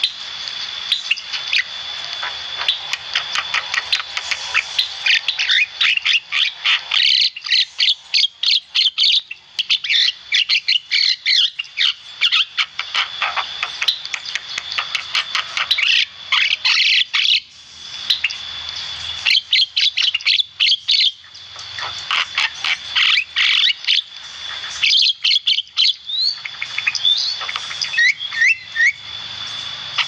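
Caged Javan myna singing vigorously: a long, dense stream of rapid chattering clicks, squeaks and short whistles, with only brief pauses.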